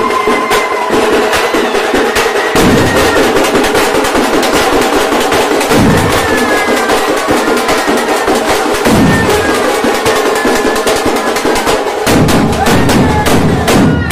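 Loud dance music built on fast, dense drumming, with a deep low thump about every three seconds.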